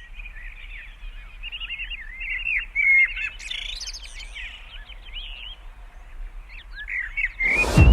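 Birds chirping and calling in a busy run of short rising and falling chirps. Near the end a sudden loud whoosh cuts in.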